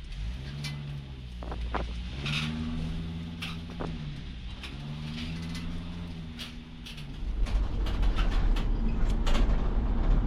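A 2006 Sprinter van's diesel engine and road noise, heard from inside the cab while driving, with scattered sharp clicks and rattles. The low rumble grows louder about seven seconds in.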